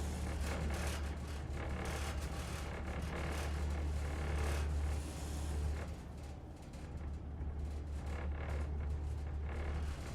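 Elevator car in motion: a steady low drive hum with rattling, scraping noise from the car and shaft over it, the level dipping briefly about halfway through.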